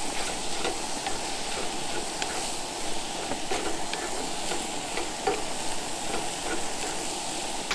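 Food sizzling in a frying pan: a steady hiss dotted with small pops and crackles.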